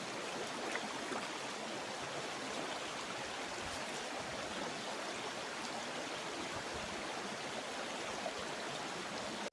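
Steady rushing of a river's flowing water, an even hiss with no breaks, cutting off abruptly at the very end.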